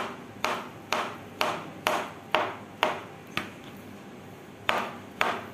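Kitchen knife chopping peeled banana on a plastic cutting board: sharp knocks of the blade on the board, about two a second, each with a short ring. They pause for about a second, then two more follow near the end.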